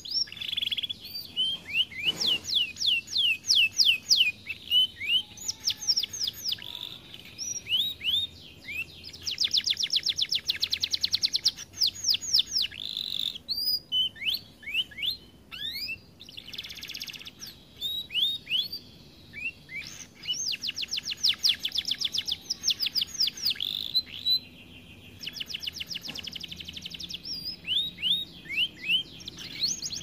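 Domestic canary singing: long phrases of rapid trills and rolls of repeated notes, mixed with down-slurred whistles, broken by short pauses.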